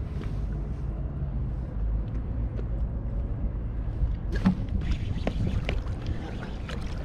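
Steady wind rumble on the microphone and water lapping against an inflatable float tube on choppy water. From about four seconds in come several sharp knocks and clicks from rod and reel handling as a fish is struck and the rod bends.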